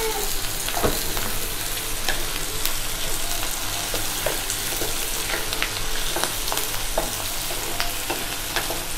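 Chopped onions and tomatoes sizzling in butter in a nonstick pan, stirred with a wooden spatula that scrapes and taps against the pan many times.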